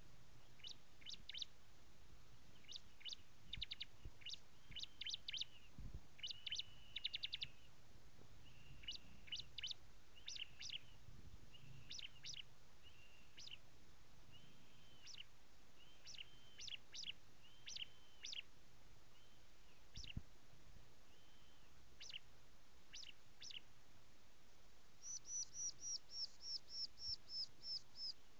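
Bar-winged prinia (ciblek) calling: scattered bursts of sharp, high chip notes mixed with short buzzy phrases. Near the end comes a quick run of about a dozen high notes, roughly four a second.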